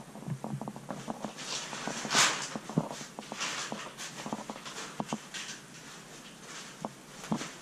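Footsteps and boot scuffs on a rocky cave floor: irregular small knocks and clicks with brief scraping rustles, the loudest scrape about two seconds in.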